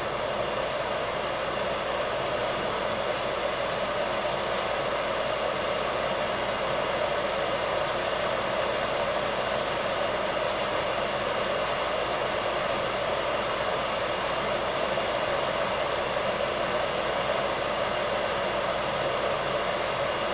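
A steady rushing noise with scattered faint crackles from chicken livers frying in a pot over a gas burner.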